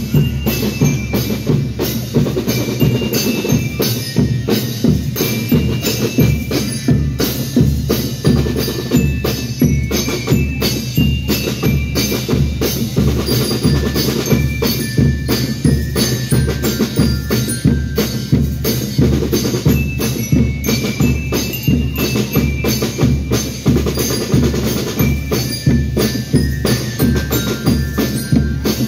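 School rhythm band (banda rítmica) playing: bass drums and snare drums keep a steady marching beat under a melody of short ringing notes on bell lyres.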